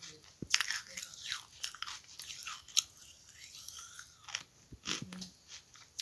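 Biting and chewing pieces of charcoal: a run of sharp, irregular crunches and crackles.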